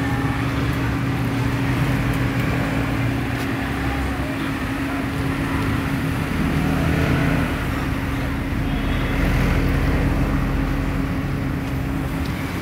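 Road traffic: vehicle engines running and passing, with a steady engine hum underneath and a louder vehicle going by about nine seconds in.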